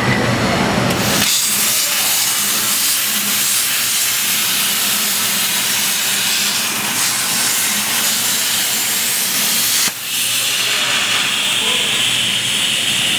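CNC plasma cutting torch hissing loudly as it cuts steel plate. The hiss starts about a second in, cuts out briefly near the end and comes back higher-pitched.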